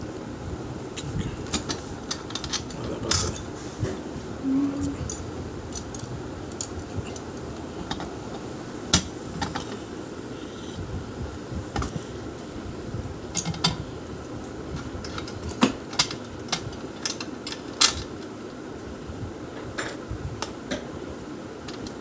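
Small metal parts and tools clinking and clicking irregularly while a child's bicycle is assembled by hand, with a few sharper knocks near the middle and towards the end.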